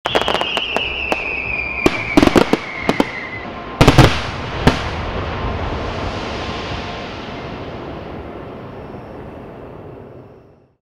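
Fireworks going off: a whistle falling in pitch over the first few seconds, a cluster of loud bangs about two seconds in and again about four seconds in, then a dense crackling hiss that slowly fades away.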